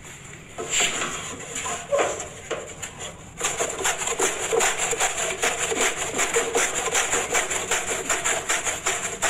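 Cabbage being shredded by hand on a wooden manual shredder with serrated steel blades: rhythmic rasping strokes, a few scattered ones at first, then a quick steady back-and-forth of several strokes a second from about three and a half seconds in.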